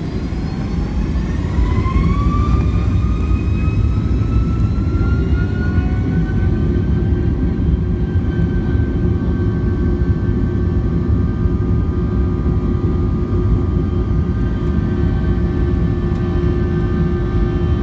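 Boeing 757-200's turbofan engines spooling up inside the cabin, a whine rising in pitch over the first several seconds and then holding steady over a loud rumble as thrust is set for takeoff.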